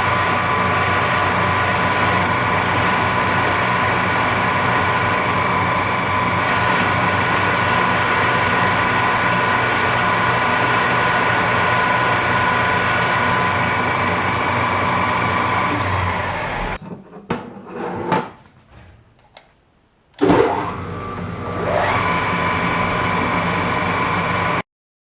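Metal lathe running with a steady whine. About 17 s in it stops, with a few knocks. About 20 s in it starts again, the whine rising as it comes up to speed, and it cuts off suddenly near the end.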